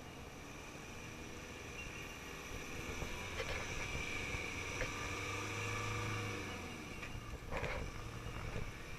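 Volkswagen Amarok ute's engine running at low speed as it creeps along a muddy track, growing louder through the middle as it approaches, with a few brief knocks.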